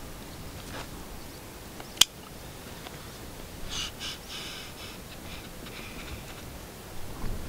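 Cooking handling sounds: one sharp click about two seconds in, then a few seconds of light rustling and handling as ingredients go into the kazan.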